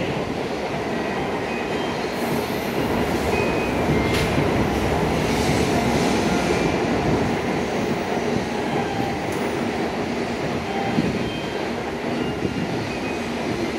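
Steady low rumble and hum of an N700A Shinkansen train standing idle at a station platform, with a sharp click about four seconds in and a few brief hisses.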